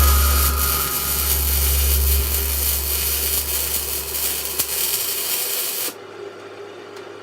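Steady hissing noise over background music whose bass fades away; the hiss cuts off suddenly about six seconds in.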